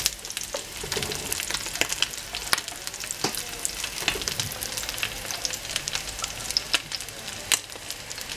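Rice-and-egg fritters sizzling in hot oil in a clay cazuela. A steady hiss is broken by frequent sharp, irregular crackles and pops as loose grains of rice spatter in the oil, with a spatula moving the fritters about.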